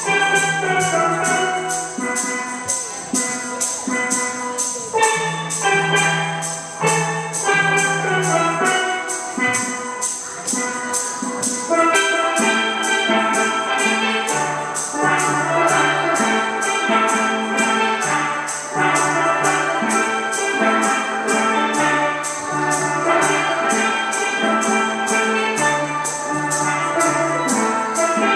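Music with a steady beat: a repeating bass line under many pitched notes, with fast, even high ticks keeping time.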